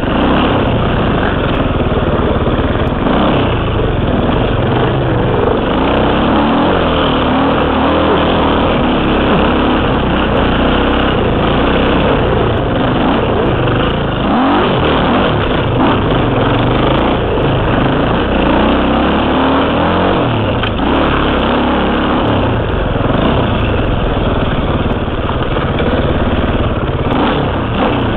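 KTM 300 two-stroke dirt bike engine revving up and down without a break as it rides a rough trail, heard close up from a helmet camera.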